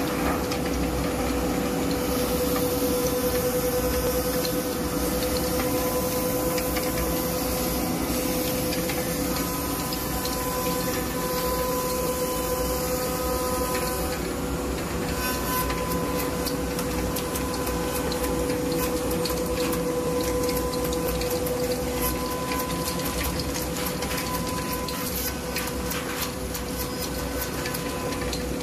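CNC router spindle cutting wood: a steady high-pitched whine over the rushing air of the dust extraction hose. About halfway through, a dense rapid crackling joins in.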